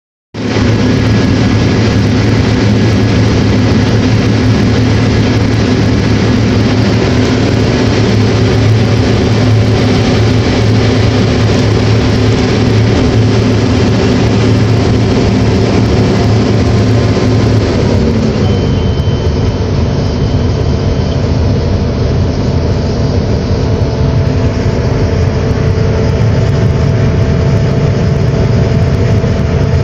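Heavy diesel farm machinery running steadily during cotton harvesting, heard from inside a cab. About 18 seconds in the engine note drops lower and the hiss thins, and a faint high steady tone sounds for a couple of seconds.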